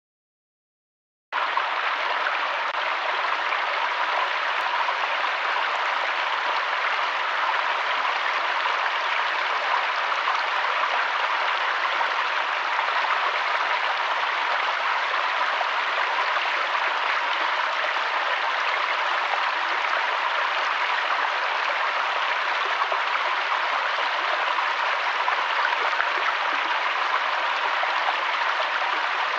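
Flowing water running steadily, like a stream, starting abruptly about a second in after silence.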